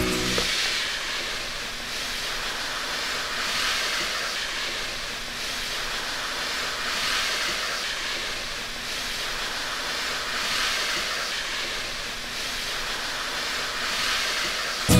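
Soft hissing swish of long hair sliding across a floor, rising and falling in slow swells about every three seconds.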